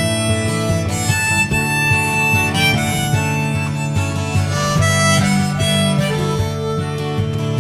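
Background music: harmonica melody over acoustic guitar, the instrumental opening of a folk-rock song.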